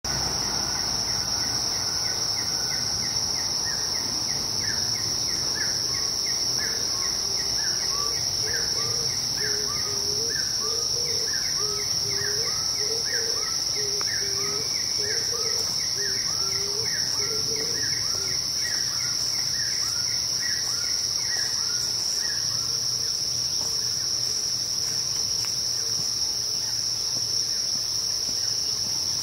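Insects sounding a steady, unbroken high-pitched drone. Over it runs a series of short rising calls, several streams overlapping at different pitches, roughly one to two a second, which fade out after about twenty seconds.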